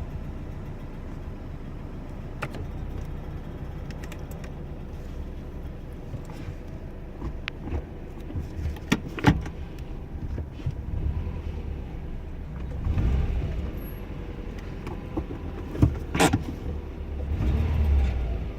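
2010 Subaru WRX's turbocharged boxer four idling with a steady low rumble. It is broken by a few sharp clicks about a third of the way in and near the end, and by two low swells in sound in the second half.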